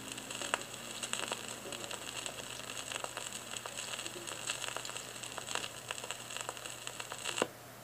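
Vinyl record surface noise: crackle and scattered pops from the stylus riding the groove after the music has ended, over a faint low hum. Near the end there is a sharp click as the tonearm is lifted, and the crackle cuts off.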